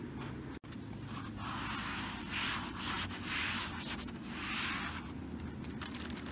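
A hand rubbing across the textured foam hood insulation pad on the underside of a Porsche 944's bonnet, in about four rubbing strokes between one and five seconds in, over a steady low background hum.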